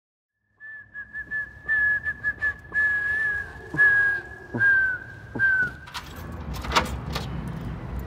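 A person whistling in short phrases that stay close to one high pitch, several notes ending in a downward slide. The whistling stops about six seconds in, giving way to a low rumble with a few sharp clicks.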